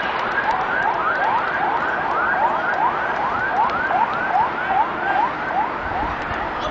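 A siren or electronic alarm sounding in quick rising sweeps, about two or three a second, over steady background noise. It stops shortly before the end.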